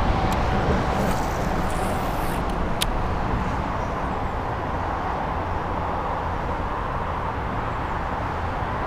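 Steady outdoor rumble and hiss of wind on the microphone mixed with distant road traffic, with a single sharp click about three seconds in.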